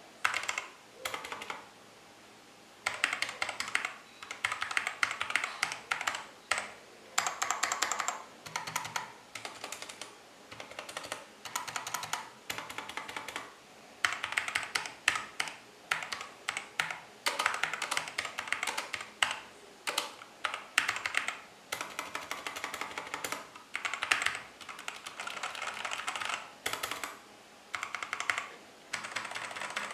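Mechanical keyboard with Halo True tactile switches being typed on: rapid keystroke clicks in runs of a second or two, with short pauses between bursts.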